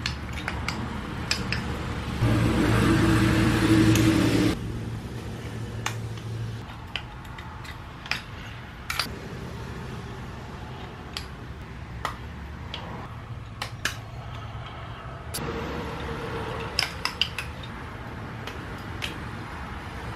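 Metal clinks and light knocks of Vitara pistons, steel wrist pins and Speed Factory connecting rods being handled and fitted together by hand, as scattered sharp clicks. About two seconds in, a louder steady hum runs for a couple of seconds.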